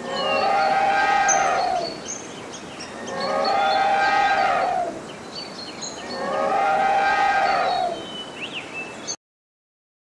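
Elephant trumpeting three times, each call about two seconds long, with short bird chirps faintly in the background. The sound stops about a second before the end.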